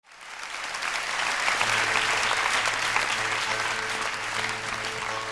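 Concert audience applauding, fading up over the first second, with a low held note from the band's instruments starting under the clapping about one and a half seconds in.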